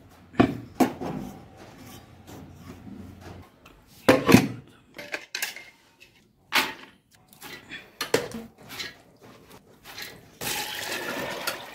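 Kitchen work with pots and utensils: a series of sharp clinks and knocks of metal cookware, the loudest about four seconds in. Water runs for about a second near the end.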